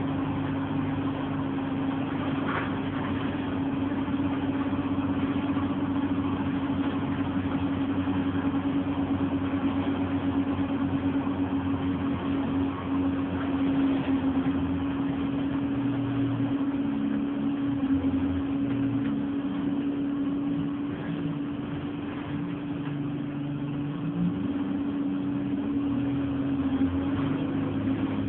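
Interior sound of an ADL Enviro200 Dart single-deck bus on the move. The engine runs under a steady whine, and its note shifts up and down several times as the bus changes speed.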